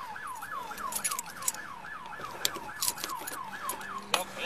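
Emergency vehicle siren on a fast yelp, about three pitch sweeps a second, switching near the end to a slowly rising wail. Scattered sharp clicks and knocks of hands working at the car.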